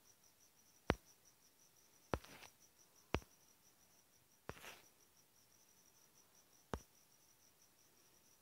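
Five sharp clicks spread over several seconds, the kind made by fingertip taps on a phone screen while moving through menus. The second and fourth clicks each have a short rustle after them. Under the clicks runs a faint, high, rapidly pulsing chirp.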